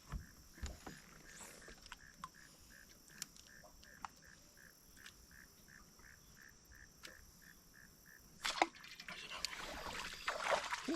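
Quiet spell on a fishing boat with small clicks and knocks and a faint high pulsing about three times a second. A sudden sharp noise comes about eight and a half seconds in, followed by busier rustling and water-like noise.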